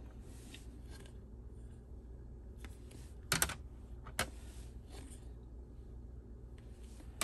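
Hard plastic graded-card slabs clicking against each other as they are handled and swapped: a quick cluster of sharp clacks about three seconds in and a single click just after four seconds, over a faint low hum.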